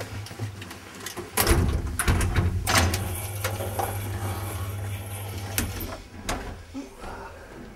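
Elevator running: a clunk about a second and a half in as it starts, then a steady low hum of the drive while the car travels, ending with clicks and a clunk near six seconds as it stops.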